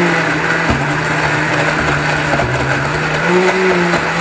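Countertop blender motor running at speed, churning plum chunks and liquid into a smoothie. Its steady hum sags in pitch about halfway through, then climbs back up.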